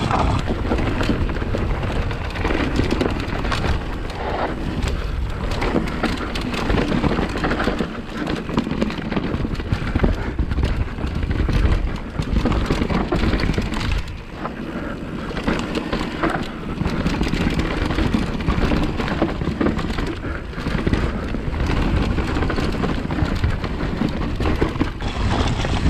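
Wind rumbling on an action camera's microphone, with knobby tyres crunching over a dirt and root forest trail and the bike rattling, as a Specialized Kenevo e-mountain bike descends at speed. The noise runs on unbroken, dipping briefly about eight and fourteen seconds in.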